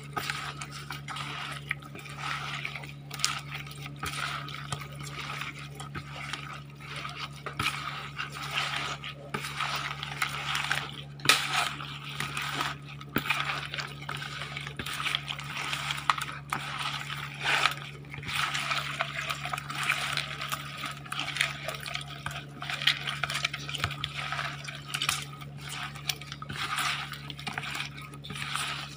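Gloved hands mixing raw fish pieces with cooked rice in a basin: continuous, irregular wet squishing and rustling with small clicks as the pieces are turned over.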